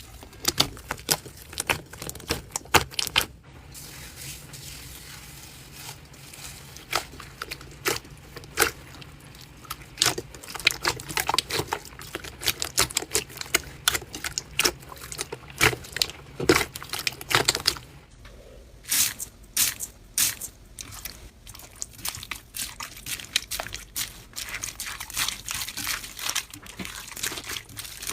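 Hands squishing, stretching and poking slime: a dense run of sticky pops and crackles. The texture changes suddenly about three seconds in and again at about eighteen seconds, as a different slime takes over.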